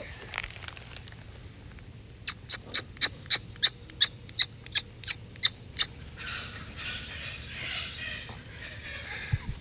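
A bird calling: a rapid, even series of about a dozen short high notes, roughly three or four a second, starting a couple of seconds in. It is followed by a few seconds of rustling noise.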